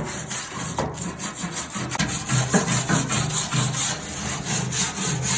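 A brush scrubbed hard back and forth over the tractor's sheet-metal bonnet: a loud, continuous scratchy rubbing in quick repeated strokes.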